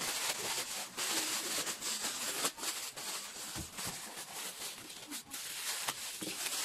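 Packaging rustling and crinkling as it is handled and unwrapped, with small clicks and knocks scattered through.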